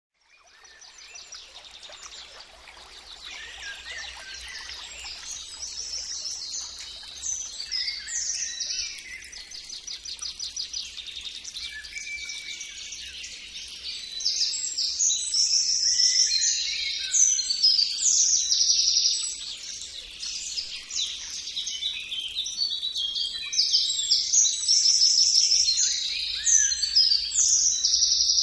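Birds singing: many overlapping chirps and fast trills, fading in at the start and louder from about halfway.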